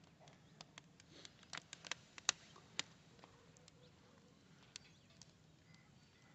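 Firewood crackling in the firebox under a bitumen-heating tank: faint, irregular sharp pops, a quick run of them in the first three seconds or so, then only now and then.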